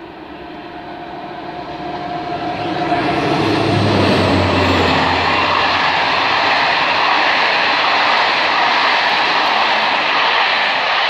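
A passenger train passing close below, its rushing noise of wheels and air growing loud over the first few seconds and then staying loud and steady.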